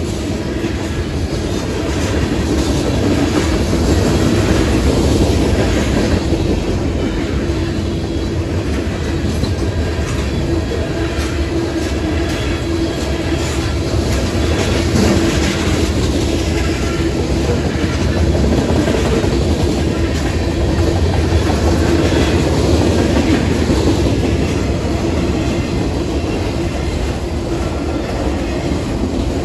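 Freight cars of a manifest train rolling past: a steady, loud rumble with the wheels clattering over the rail.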